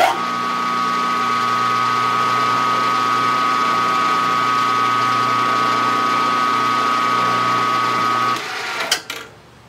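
Geared-head milling machine switched on with a click, its motor and spindle gears running with a steady whine while a center drill spots a hole in a small metal part. It is switched off about eight seconds in and winds down, with a click near the end.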